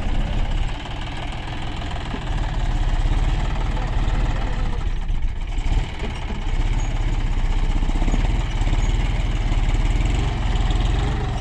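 John Deere 5105 tractor's three-cylinder diesel engine running steadily under load as the tractor, stuck in loose soil, tries to pull free.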